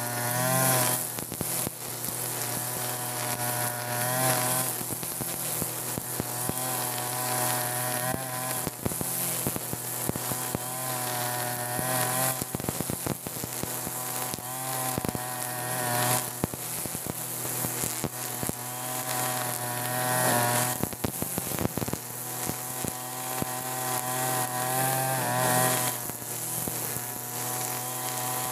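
TB43 two-stroke brush cutter running with a 2.4 mm nylon-line trimmer head, cutting grass. The engine speed rises and falls every few seconds as the line is swung through the grass, with the line's hiss over the engine.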